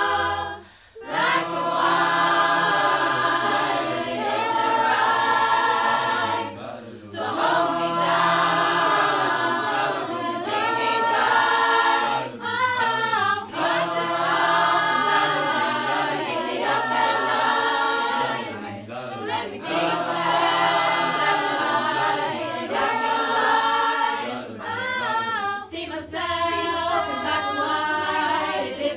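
Mixed-voice a cappella choir, men and women, singing a song in close multi-part harmony with no instruments, with a few brief breaks in the sound.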